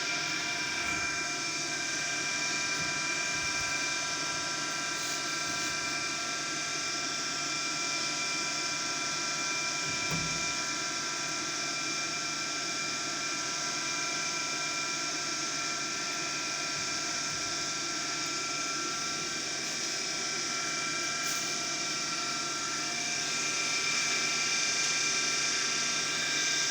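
Automatic washing machine running steadily with a whine of several high tones over a hiss, growing slightly louder near the end. The machine has a damaged water level sensor.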